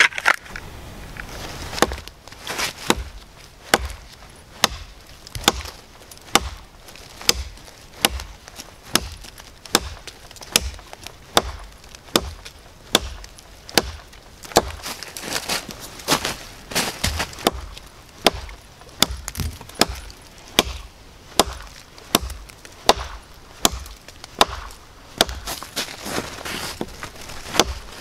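Chopping into a pine log with a Reapr Tac Bowie knife, its 7-inch blade striking the wood in a steady rhythm of a little more than one chop a second.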